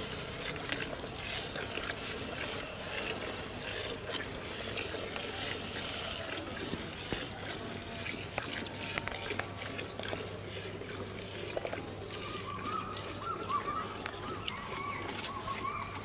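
Buffalo being hand-milked: milk squirting into a steel pail, with many small irregular clicks over a steady low hum.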